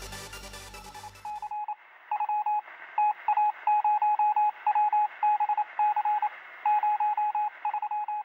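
Electronic dance music stops about a second and a half in. An electronic beep at one pitch then sounds over and over in quick, irregular groups of short and longer tones, like a telegraph-style sound effect.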